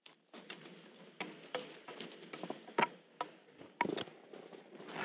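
Gloved hands handling ski pole straps and grips: irregular sharp clicks and taps with fabric rustling. The loudest clicks come a little before three seconds and around four seconds.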